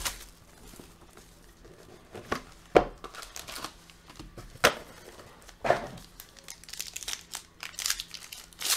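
Trading card packaging being opened by hand: plastic wrap and a foil card pack crinkling and tearing, in scattered sharp crackles, the loudest nearly three seconds in, growing denser near the end as the foil pack is worked open.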